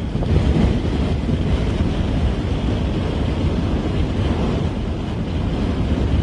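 Strong blizzard wind buffeting the microphone: a loud, steady, gusting low rumble.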